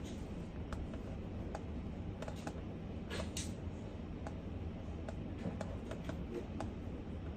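Sparse, irregular keystrokes on a computer keyboard: about a dozen separate clicks, with a brief brushing sound a little past three seconds in, over a steady low room hum.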